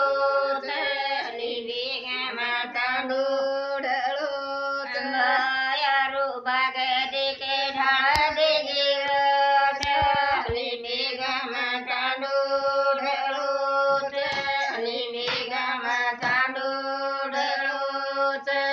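Elderly women singing a Banjara folk song together without instruments, in long, drawn-out held notes. The singing stops abruptly at the very end.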